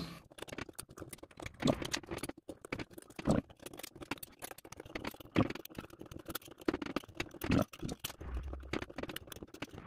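Side cutters snipping and nibbling away the thin metal screw base of an LED bulb: a run of small irregular clicks and crunches, with a few sharper snips among them.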